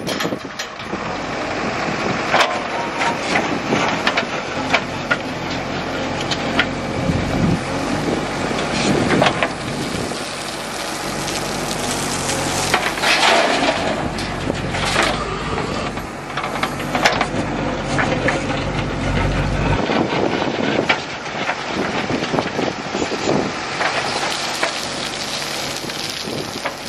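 JCB 3DX backhoe loader's diesel engine running under load while its bucket scrapes through stony soil and tips it into a steel tractor trolley. Dirt and gravel clatter and pour into the trolley bed, with scattered sharp knocks.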